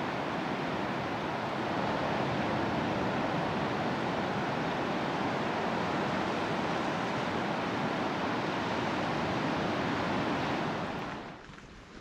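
Steady roar of Pacific Ocean surf breaking on a beach, dropping away sharply near the end.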